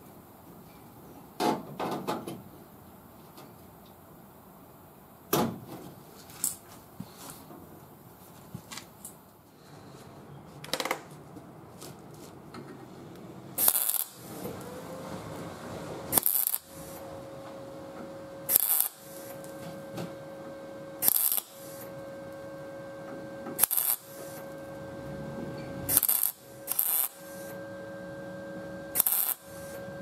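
Scattered clicks and knocks of sheet metal being handled and clamped, then an ARCCAPTAIN MIG200 MIG welder laying short tack welds on a steel patch panel. About halfway through come eight brief bursts of welding crackle, roughly every two and a half seconds, with a steady hum between them.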